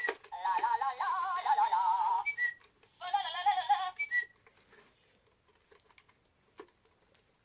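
Toy toucan flashlight playing its electronic bird song: two short bursts of warbling, chirping tones, each ending in a quick high blip, after which it stops.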